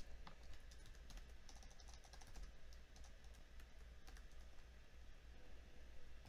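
Faint computer keyboard typing, a word tapped out key by key, over a steady low electrical hum.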